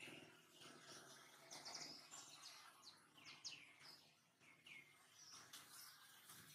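Faint birds chirping in the background: a string of short, quick, falling chirps over a low hiss.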